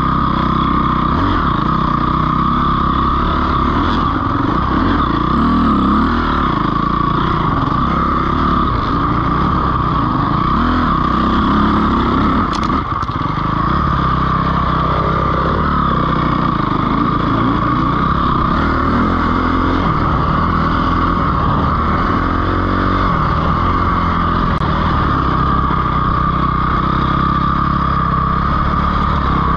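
Dirt bike engine running while riding a trail, its pitch rising and falling continuously as the throttle is worked.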